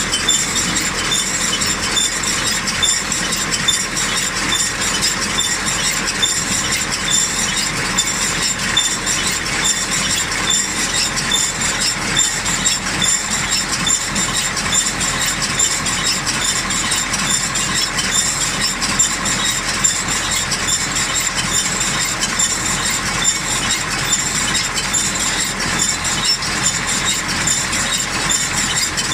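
Claas Rollant 255 RotoCut round baler turning over empty on a test run: a steady, fast mechanical clatter from its rollers, chains and drive, with a high metallic ringing tone over it.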